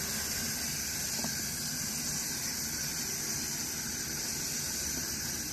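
Water running from a garden hose into an animal waterer, a steady hiss.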